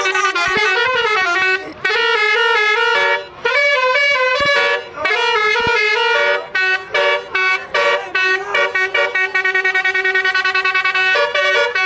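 Basuri telolet horn, a vehicle's set of tuned horns, playing a tune in chords that change pitch step by step. It has brief pauses between phrases and a run of quick, short repeated notes in the second half.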